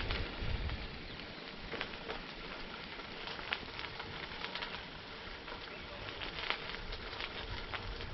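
Bicycle tyres rolling over light gravel: a steady hiss scattered with small crackles and clicks of stones.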